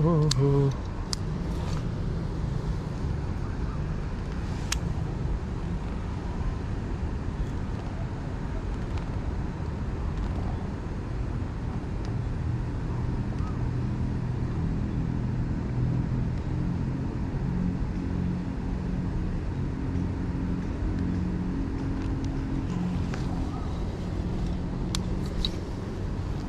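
Steady city road-traffic rumble with a low engine hum, broken by a few sharp clicks.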